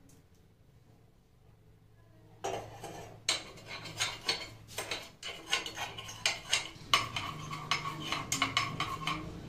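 Metal spoon clinking against the metal cups of an appe (paniyaram) pan as oil is spooned into each cup. Quiet for about the first two seconds, then rapid, irregular clinks with a ringing tone.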